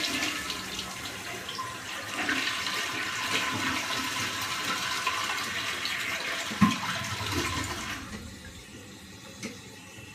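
Toilet flushing: a rush of water from the tank into the bowl for about eight seconds, with a sharp knock near the end, then dropping to a quieter steady hiss as the newly installed fill valve refills the tank.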